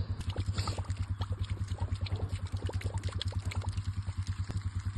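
An engine running steadily with an even low pulse, under water pouring and splattering from a hose.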